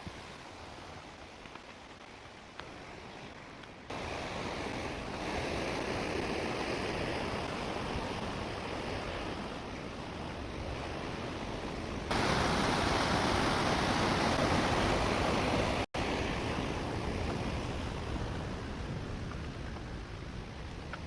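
Waterfall's rushing water, a steady noise that jumps suddenly louder about four seconds in and again about twelve seconds in, with a momentary drop-out near sixteen seconds.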